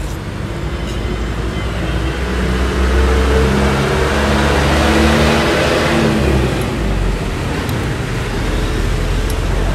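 A motor vehicle driving past on the road, its engine note growing louder to a peak about three to six seconds in, then dropping in pitch and fading, over a steady low traffic rumble.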